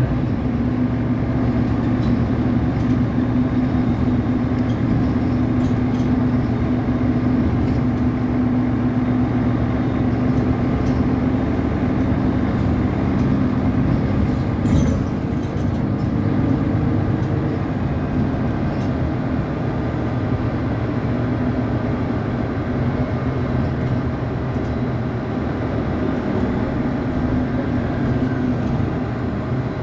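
Cabin sound of a Mercedes-Benz articulated city bus on the move: a steady low hum over road and running rumble, easing slightly about halfway through.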